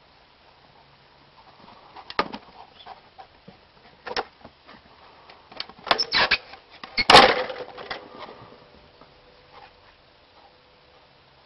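Wooden knocks and clacks from a homemade wooden ball-throwing contraption being worked by a dog: single knocks about two and four seconds in, a quick cluster near six seconds, and the loudest clatter about seven seconds in.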